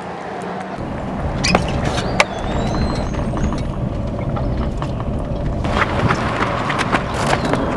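Pickup truck running with road noise, broken by several sharp knocks and clicks, most of them bunched together near the end.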